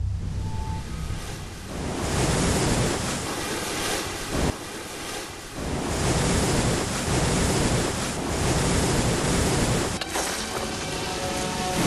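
Storm surf and rushing floodwater with wind, a dense noisy wash that dips briefly about four and a half seconds in. Faint music comes back in near the end.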